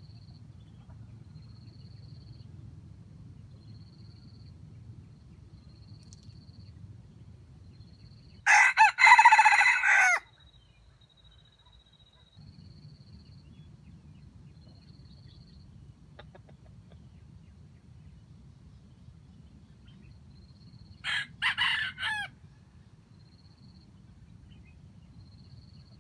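Red junglefowl rooster crowing twice: a loud crow of nearly two seconds about eight seconds in, then a shorter crow later on.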